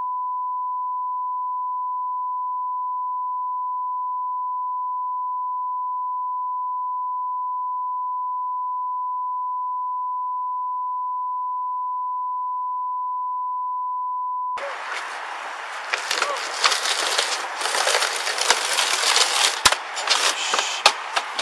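A steady, unbroken censor beep that blanks out the audio for about fourteen and a half seconds, then cuts off suddenly into loud freeway traffic and wind noise on a police body-worn camera, with a few sharp knocks and clatter near the end.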